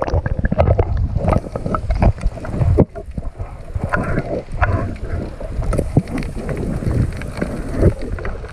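Water sloshing and splashing around a waterproof action camera held at or just under the sea surface, with a heavy low rumble and many irregular knocks against the housing.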